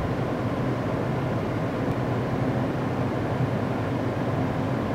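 A steady low mechanical hum with an even rush of air, unchanging throughout.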